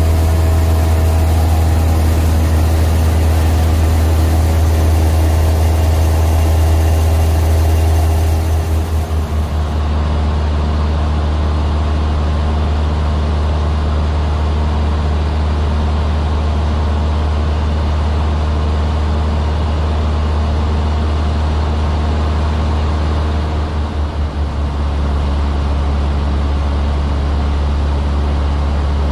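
Light single-engine airplane's piston engine and propeller droning steadily, heard inside the cockpit. The drone changes and drops a little about nine seconds in, and wavers briefly about 24 seconds in.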